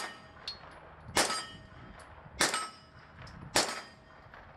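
Kalashnikov USA KP9 9mm pistol firing single shots at a steady pace, one at the very start and three more about 1.2 seconds apart. Each shot is followed by the clang of a steel target ringing on.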